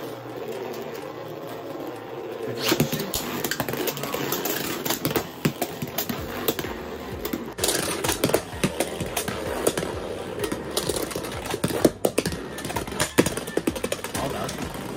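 Two Beyblade X spinning tops whirring across a plastic stadium floor, with repeated sharp clacks as they strike each other and the stadium wall.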